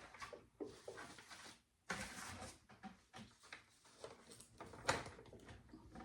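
Handling noises from assembling a plastic animatronic figure: irregular rustling with scattered light clicks and knocks, the loudest a sharp click about five seconds in.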